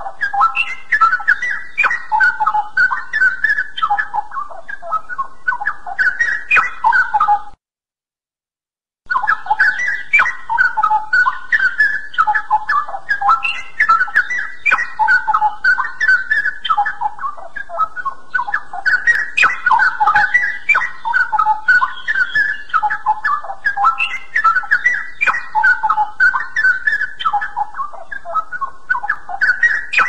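Straw-headed bulbul (cucak rawa) singing loud, fast, continuous runs of notes. About seven and a half seconds in, the song cuts to dead silence for about a second and a half, then starts again.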